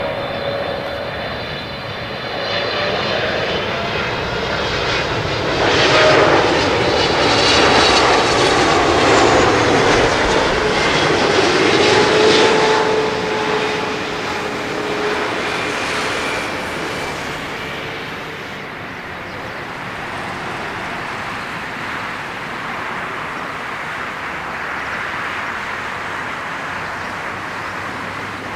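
Boeing 777-300ER's twin GE90-115B turbofans on final approach, passing close with a whine that falls in pitch, loudest around the middle. It then gives way to a steadier, fainter rumble as the jet lands and rolls out on the runway.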